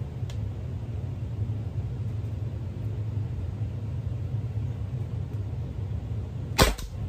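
A single sharp shot from a CO2-powered .68-calibre Byrna SD launcher about six and a half seconds in, firing a solid glass-breaking round. A steady low hum runs underneath.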